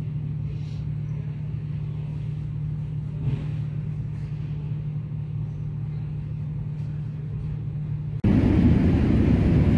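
Steady low vehicle drone; about eight seconds in it cuts abruptly to a much louder rushing noise.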